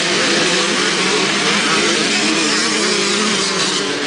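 A pack of off-road dirt bikes racing past at full throttle, many engines revving at once, their pitches wavering over one another.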